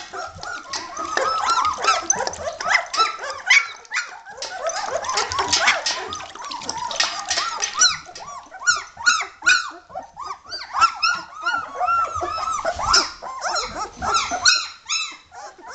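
A litter of 17-day-old German Shepherd puppies whining and squeaking, many short rising-and-falling cries overlapping each other, with a brief lull about halfway through.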